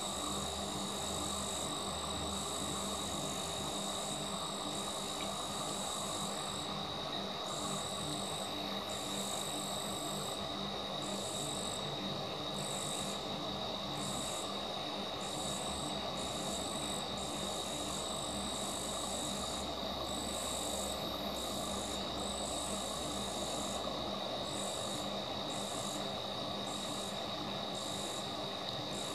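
Night insects calling steadily, crickets most likely: one unbroken high trill, with a second, higher trill coming in on-and-off bouts every second or so.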